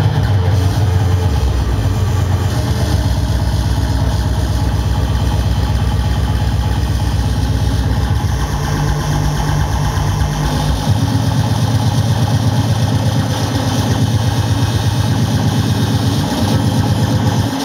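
Loud, heavily distorted electronic noise music through a club sound system: a dense, rapidly pulsing bass rumble that changes pattern about eight and a half seconds in and again around eleven seconds.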